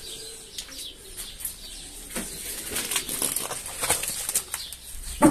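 Domestic pigeons flapping their wings in quick flurries of sharp, rustling wing beats, growing busier and louder in the second half.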